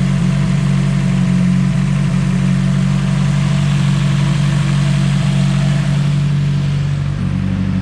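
Nissan S14 engine idling steadily as it warms up, its idle note shifting slightly about seven seconds in.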